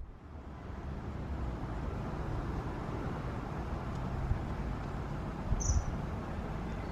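Steady outdoor background noise with a low rumble, and one short high chirp near the end.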